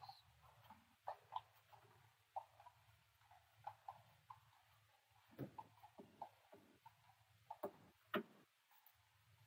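Faint, irregular clicks and light metallic knocks of hand tools and fasteners being worked on a car's front suspension, with a few sharper knocks about five and a half and eight seconds in.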